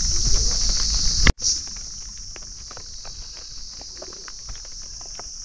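Raindrops tapping on a wet tent's rain fly, scattered ticks over a steady high drone of insects. About a second in the sound breaks off for an instant, and when it returns the deep rumble underneath has gone and it is quieter.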